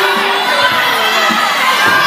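Crowd screaming and cheering, many voices overlapping at a steady, loud level.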